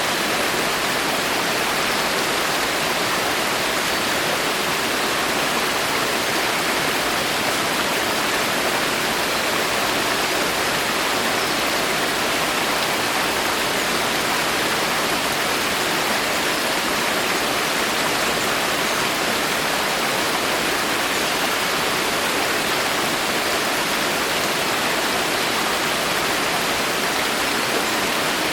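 Steady rain falling in a forest: an even hiss with no single drops standing out.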